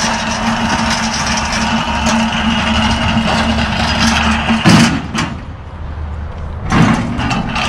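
Empty manual pallet jack rolling over concrete and asphalt with a steady rattling rumble, then two loud clanks about two seconds apart as its wheels run onto the truck's steel lift-gate platform.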